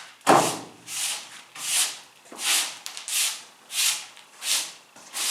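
A brush sweeping a work table clear in eight even, swishing strokes, a little more than one a second.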